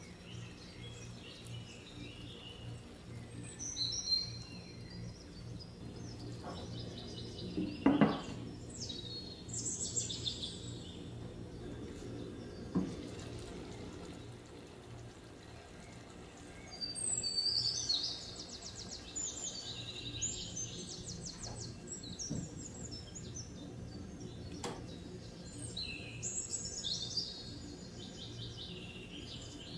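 Small birds chirping and twittering in repeated bursts over a steady low hum, with a sharp clank about eight seconds in and a couple of lighter knocks later.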